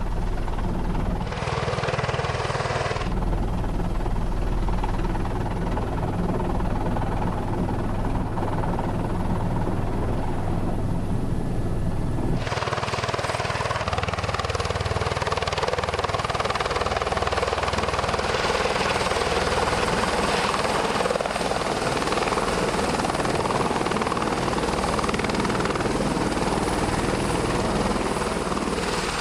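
Helicopter running: a steady low rumble with a thin high whine, joined about twelve seconds in by a broad rushing noise that stays.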